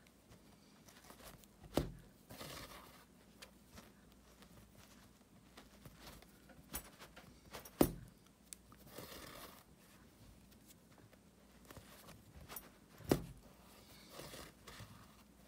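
Hand work on a rug: soft rustling and scraping, broken by three sharp knocks about five to six seconds apart.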